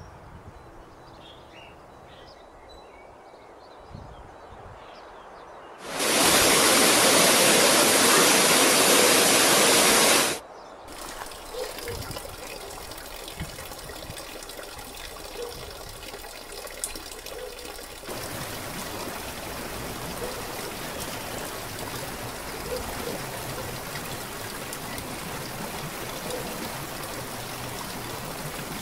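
Flowing water: a steady trickle and spatter of water, followed for the last ten seconds or so by the louder, steady splash of a small waterfall. About six seconds in, a loud rushing hiss cuts in and stops abruptly four seconds later.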